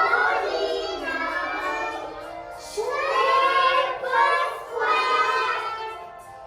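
Young children singing a song together, in phrases a second or two long with short breaks between them.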